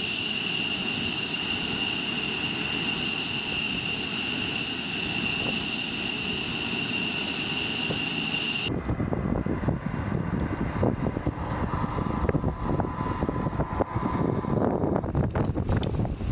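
Jet engine turbine whine on a fighter flight line: a loud, steady high whine of several pitches over a rumble, which cuts off suddenly about nine seconds in. After that comes gusty wind on the microphone with a fainter steady engine hum.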